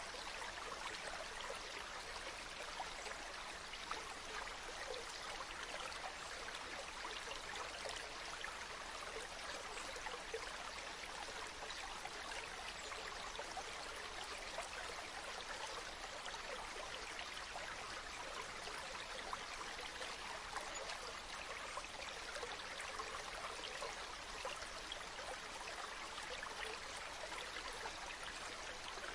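Mountain stream running over rocks: a steady rush of water with small splashes and trickles throughout.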